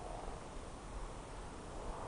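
Night wind blowing: a steady hiss with a low rumble of wind buffeting the microphone.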